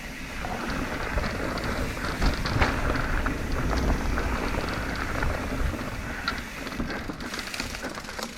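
Mountain bike rolling over a dirt and rocky trail: tyres crunching and the bike rattling with many small clicks and knocks, over a steady rumble of wind on the microphone.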